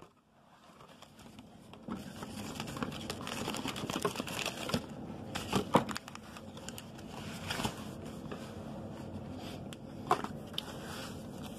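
Foil trading-card packs crinkling as they are handled, with a few sharper crackles.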